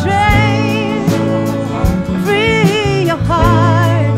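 Soul band playing live: a drum kit with cymbal strokes, steady bass notes and a sustained keyboard bed under a lead melody line that wavers with vibrato.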